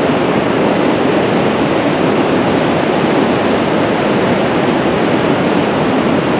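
Steady rush of surf breaking along a flat sandy shore, with no single waves or other events standing out.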